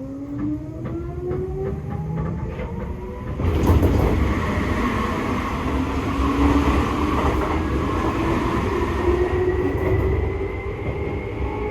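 Seibu 2000 series electric train's traction motors whining, the pitch rising steadily as the train gathers speed, with wheels clicking over rail joints. About three and a half seconds in, the train noise gets suddenly louder and stays loud.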